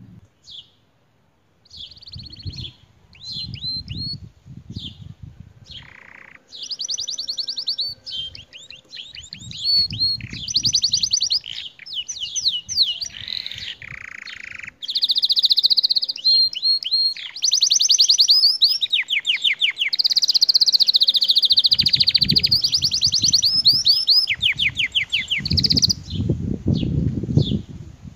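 Domestic canary singing a long song of fast trills and rolling repeated notes, fullest in the second half, with a low rumble underneath in places.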